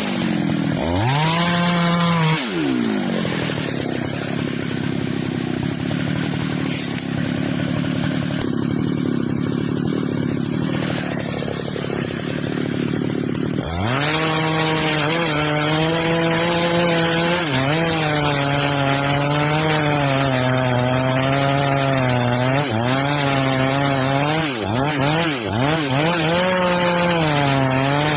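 Two-stroke chainsaw revving up, then cutting through wood for about ten seconds. After that the engine runs at high revs, its pitch dipping and recovering again and again under varying load.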